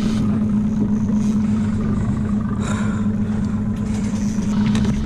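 Boat engine running steadily with an even low hum.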